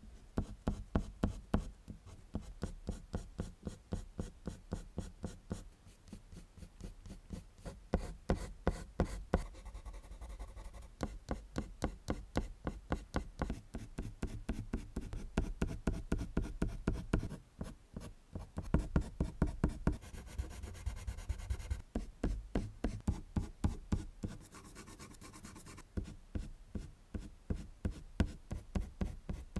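Colored pencil scratching on drawing paper in quick, short hatching strokes, about five a second, with a few brief pauses.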